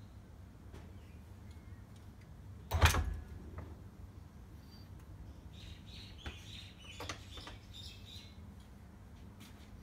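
A single heavy metal clunk about three seconds in as the small petrol engine with its clutch is slid onto the groomer's greased drive shaft and set down on its mounting plate, followed a few seconds later by a scatter of light metallic clicks and scrapes as it is shifted into line.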